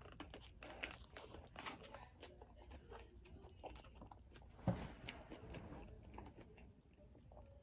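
Close-up chewing of a mouthful of vegetarian burrito and green onion: faint, irregular crunches and wet mouth clicks, with one louder sound about two-thirds of the way through.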